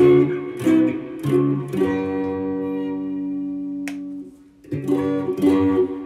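Strat-style electric guitar with Tex-Mex single-coil pickups, on the middle pickup, played through a Boss Katana amp with just a little gain for slight breakup. A few chords are strummed, one is left to ring for about two seconds, and then more strumming starts near the end.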